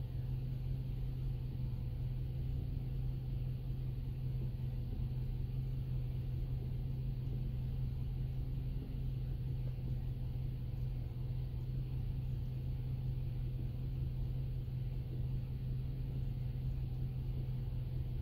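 2007 Mercury Grand Marquis 4.6-litre V8 idling with a steady low hum; no distinct knocking stands out.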